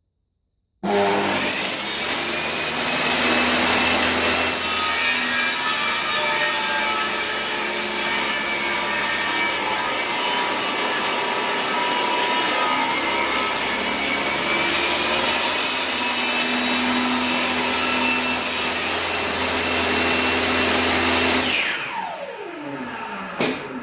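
Makita 2704N table saw switched on about a second in, then running and cutting wood (tenon cheeks) with its general-purpose cross-and-rip blade for about twenty seconds. Near the end it is switched off and the blade spins down with a falling whine.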